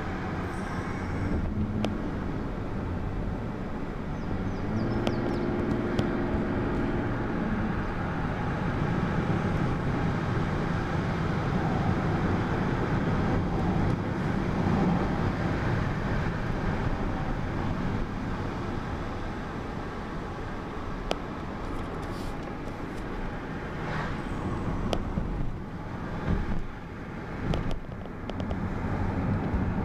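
Steady road and engine rumble heard from inside a moving car's cabin, with a few light clicks in the last several seconds.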